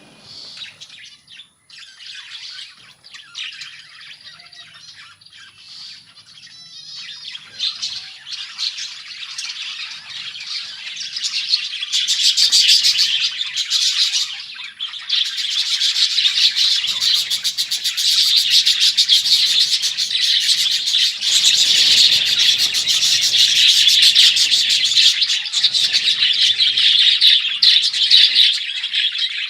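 A flock of budgerigars chirping and warbling all at once, a dense, continuous chatter that starts fairly quiet and grows much louder from about twelve seconds in.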